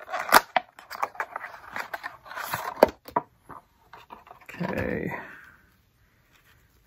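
Cardboard sunglasses box being handled and opened by hand: scraping and papery clicks as the box is slid apart, a brief louder rustle about four and a half seconds in as a cloth pouch is pulled out.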